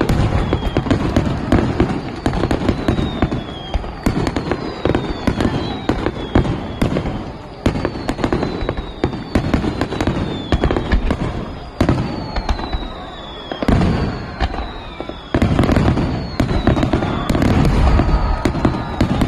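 Fireworks display at full intensity: a dense run of bangs and crackling, with repeated whistles that fall in pitch. The barrage slackens briefly about three-quarters of the way through, then resumes loudly.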